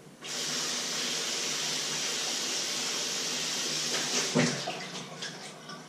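Kitchen tap turned on suddenly and running steadily as a peeled potato is rinsed under it for about four seconds. Then comes a knock, and the flow trails away with a few small clicks.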